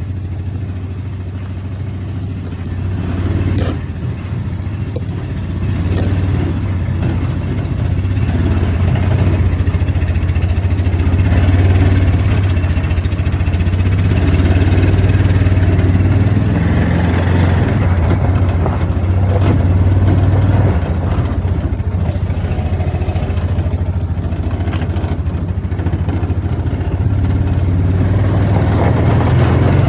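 Yamaha Viking side-by-side UTV's engine running under way. It grows louder over the first dozen seconds and then holds fairly steady.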